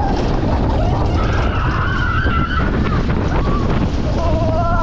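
Wind buffeting the camera microphone: a loud, steady rumbling rush, with faint shouting voices over it.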